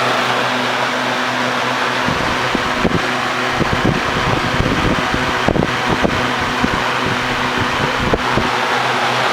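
Galaxy 3700 mini box fan running: a steady rush of air over a steady motor hum. Irregular low thumps run through the middle of the stretch.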